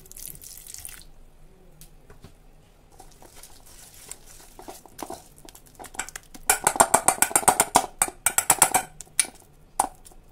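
Water poured from a jug into a steel bowl of gram flour for about a second, then a wire whisk beating thick batter, with scattered clicks that turn into a fast run of loud clinks against the steel bowl about six seconds in.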